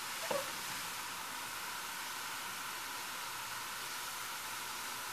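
Steady background hiss with a brief light knock shortly after the start.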